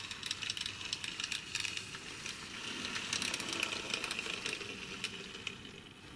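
Model train, a steam-outline locomotive hauling coaches, running past on the track: a rapid, irregular clicking and rattling of wheels over the rails with a mechanical whirr, growing to its loudest about three to four seconds in as the train passes, then fading.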